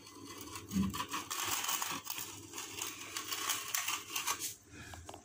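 Notched steel trowel scraping through wet thinset mortar spread on a ceiling: a rough scraping that swells and fades with each stroke, with a dull thump about a second in.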